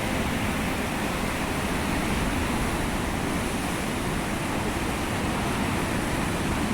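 Rough Atlantic surf in a storm: a steady, unbroken rush of breaking waves.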